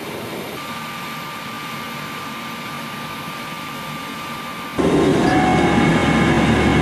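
Heavy machinery running steadily, with a thin high whine over it. About three-quarters of the way through it changes abruptly to a louder, deeper running with several steady whining tones.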